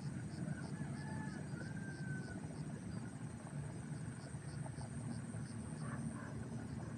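Outdoor ambience: a steady low rumble under a rhythmic high chirping of insects, with a faint high call, like a distant bird's honk, about a second in.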